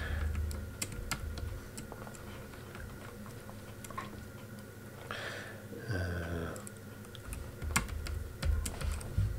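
Scattered, irregular keystrokes on a computer keyboard.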